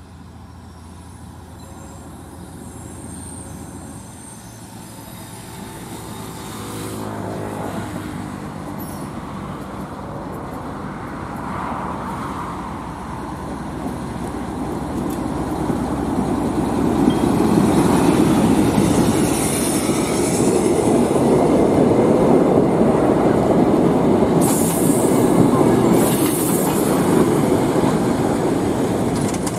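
Lxd2 narrow-gauge diesel locomotive arriving with a train of passenger coaches, its engine growing louder as it approaches. The coach wheels then rumble and clatter past on the rails, with brief high wheel or brake squeals near the end as the train slows into the terminus.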